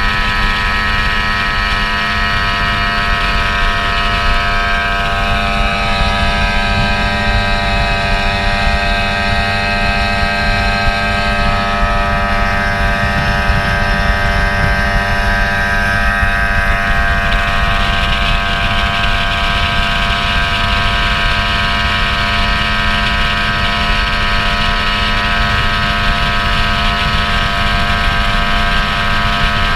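Motorboat engine running steadily at speed, a constant drone over the rumble of wind and water as the boat moves across the lake.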